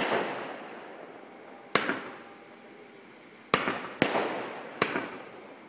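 Aerial firework shells bursting: five sharp bangs at uneven intervals, each trailing off in a fading echo.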